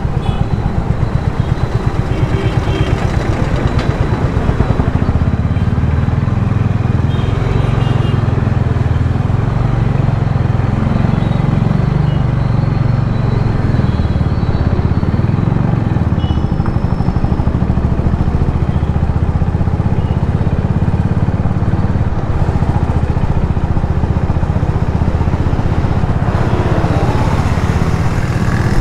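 Steady engine and road rumble of a vehicle driving through city traffic, with a few faint short high tones here and there.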